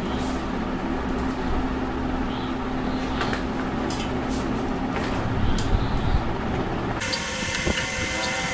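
Scattered light clicks and knocks of tools on metal fan parts during disassembly of the fan motor, over a steady background hum; near the end the background noise changes abruptly.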